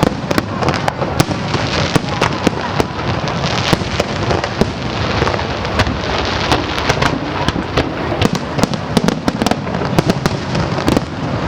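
Aerial fireworks display: a dense, continuous barrage of overlapping bangs and crackles, many per second.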